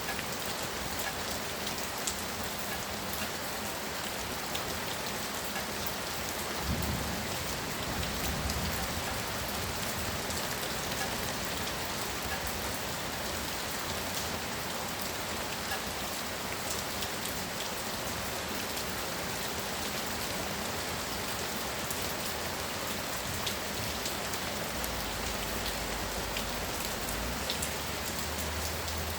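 Heavy rain pouring: a steady hiss with scattered fine drop ticks. There are brief low bumps about seven and eight and a half seconds in.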